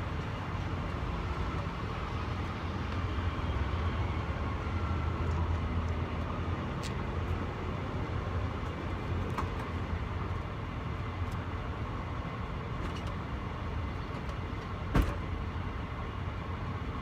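Steady low engine and road rumble of vehicles, swelling a few seconds in, with scattered light clicks and one sharp metallic knock near the end.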